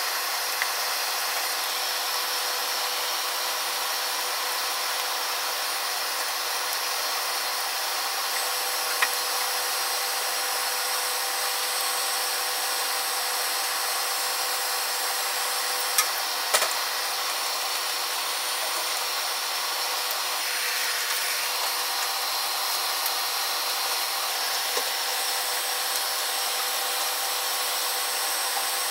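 A packed mass of matchsticks burning: a steady hiss and crackle of flames, broken by a few sharp pops, two of them close together a little past halfway.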